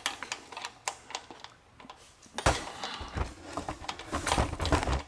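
Irregular light clicks and taps, with rustling and dull thumps between about two and a half and five seconds in: handling noise from things being moved and knocked about close to the microphone.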